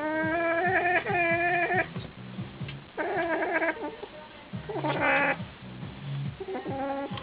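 A cat crying out in drawn-out, wavering yowls after being bitten by another cat. A long cry fades out near two seconds in, and three shorter cries follow with pauses between them.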